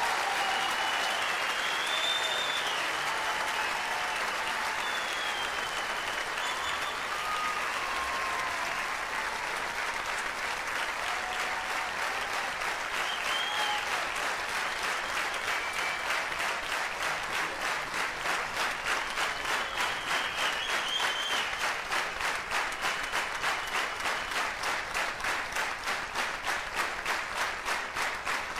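Theatre audience applauding, with a few whistles and shouts in the first half; after about 17 seconds the clapping falls into rhythmic unison at about three claps a second.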